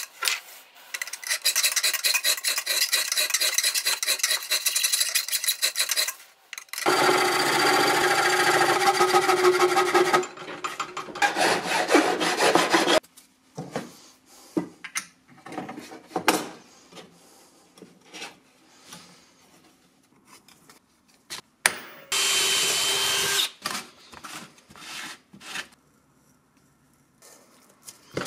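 Hand tool work on a pierced steel astrolabe part: bursts of rapid rasping strokes with pauses between. In the pauses come scattered light clicks and knocks of the part being handled.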